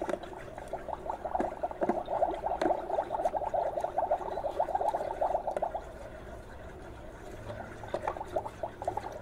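Rapid bubbling, gurgling sound from a Magic Mixies toy cauldron as its contents are stirred with the wand. It eases off about six seconds in and picks up again briefly near the end.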